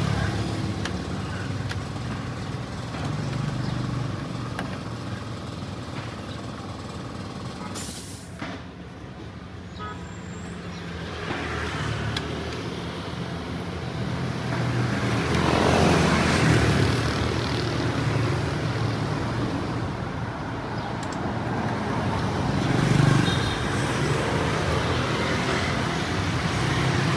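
Road traffic going by: a steady low rumble of engines, with passing vehicles swelling louder a little past halfway and again near the end.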